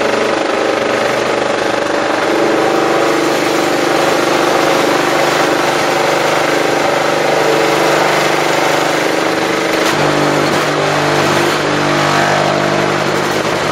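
Semi-automatic brick-making machinery running: a steady machine drone from the mixer and conveyor drive. Its low hum shifts higher about ten seconds in.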